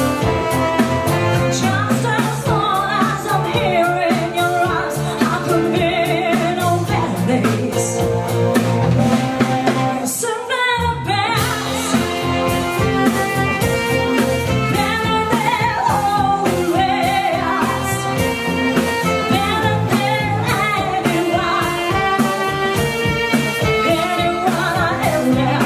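Live band playing a song: a woman sings the lead over guitars, a walking bass line and drum kit. About ten seconds in the band drops out for a moment, then comes back in.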